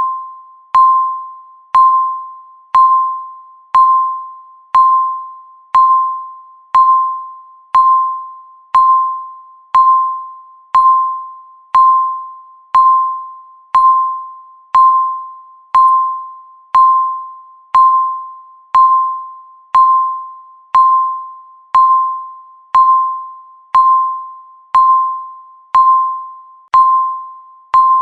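Countdown timer beeping once a second: a single mid-pitched electronic tone, each beep starting sharply and fading away before the next.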